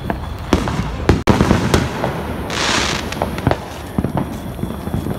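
Consumer fireworks going off: scattered, irregular bangs and pops, with a brief hiss about halfway through.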